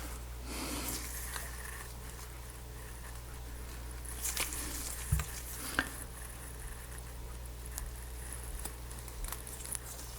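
Faint rustling and a few light clicks of the protective backing being peeled off a strip of adhesive tape, over a steady low hum.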